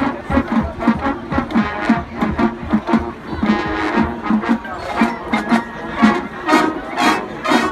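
Marching band playing: brass sustaining chords over a steady drum beat.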